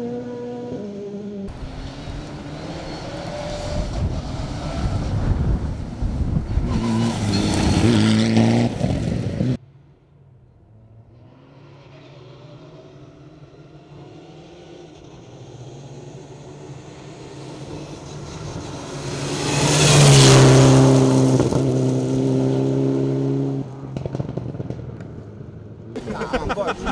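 Rally cars running hard on gravel stages, heard in separate passes joined by cuts. The first car's engine sound drops off sharply about a third of the way in. A second car then approaches and grows loud, peaking about two-thirds of the way through before another cut.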